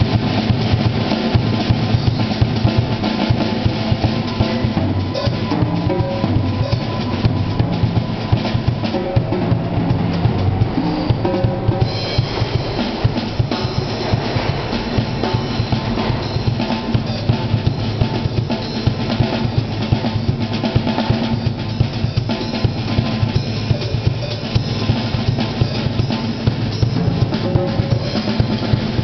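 Acoustic drum kit played without a break: bass drum, snare, toms and cymbals in a fast, dense groove.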